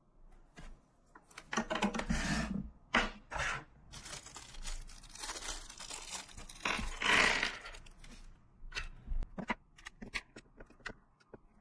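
Handling noise at a workbench: irregular scraping, rustling and tearing sounds with scattered sharp clicks, loudest about two and seven seconds in.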